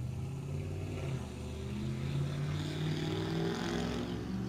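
A car engine running and accelerating as the car drives past, its pitch rising a little partway through.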